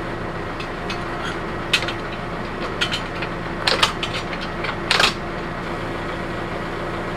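A few sharp metallic clinks and knocks of steel hitch parts being worked on a tractor's three-point quick hitch, about a second apart in the first five seconds, over the steady hum of the tractor engine idling.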